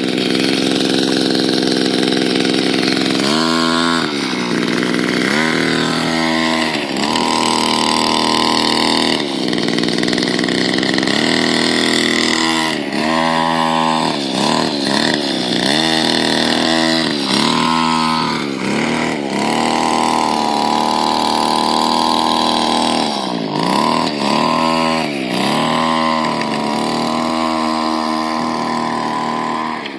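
Two-stroke weed eater engine driving a homemade RC car, revving up and down over and over as the throttle is worked. There are a few longer stretches held at high revs.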